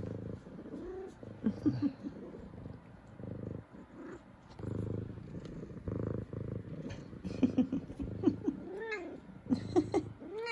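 F2 Savannah cat purring, the purr swelling with each breath. In the last few seconds she gives a quick string of short meows.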